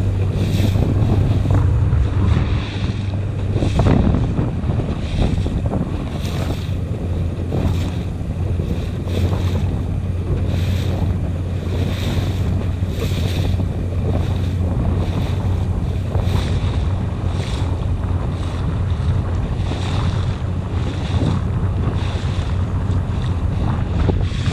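Small fishing boat's motor running steadily at trolling speed, with wind buffeting the microphone and water splashing along the hull.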